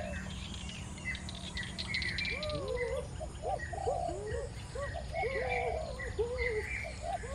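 Birds calling: many short, arching chirps overlapping one another throughout, over a steady low background noise.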